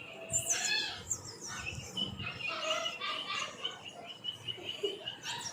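Pug puppies whimpering and squeaking, a string of high, thin cries, some gliding up and down.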